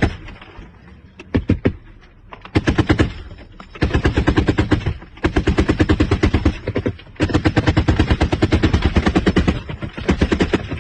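Machine gun firing in long bursts of rapid shots, about six bursts of half a second to two and a half seconds with short pauses between them, the longest near the middle.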